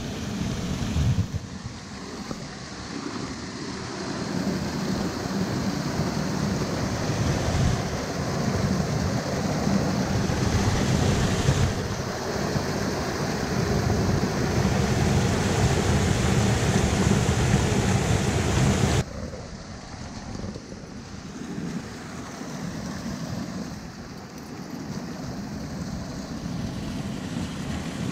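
Rushing, muddy rainwater: a runoff torrent and a small waterfall spilling over a rock ledge make a steady rushing noise. It is loudest in the middle and drops away suddenly about two-thirds of the way through, to a quieter flow.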